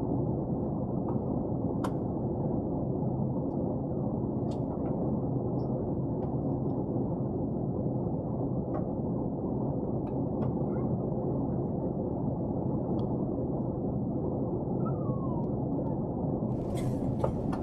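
Steady in-flight cabin noise of an Airbus A380 airliner: a low, muffled rush of engines and airflow with a faint steady hum, broken by a few small clicks. Near the end a brighter hiss comes in.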